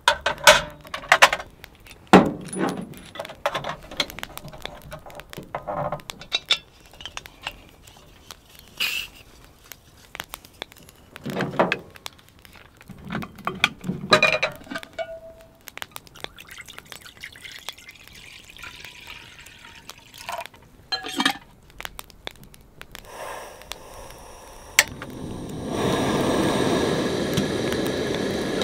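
Metal clinks and knocks as a portable gas camp stove and a steel pot are handled and set up. Near the end a sharp click, then the steady rush of the stove's lit burner.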